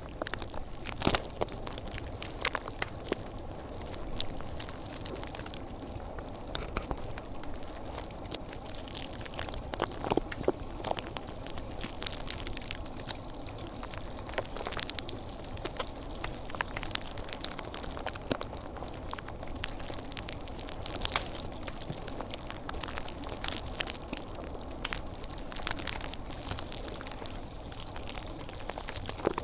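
Calming ambient background sound: a steady hiss with frequent, irregular crackles and pops.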